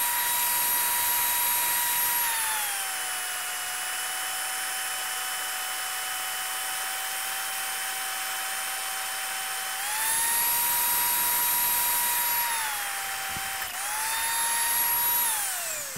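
Magnetic-base drill boring an 11/16-inch hole through a steel truck frame rail. Its motor whine drops in pitch as the cutter bites about two seconds in, rises again around ten seconds as the load comes off, bites briefly once more, then falls away near the end as the motor winds down.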